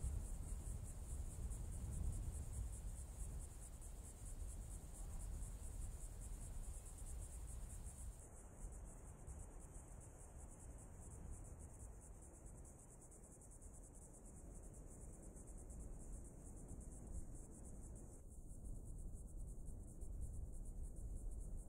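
Insects chirring steadily in a high, rapidly pulsing drone over a soft low rumble, faint outdoor ambience.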